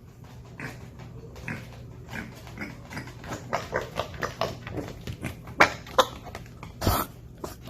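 Mini pig grunting in quick short grunts that grow faster and louder, with one louder, longer call about seven seconds in.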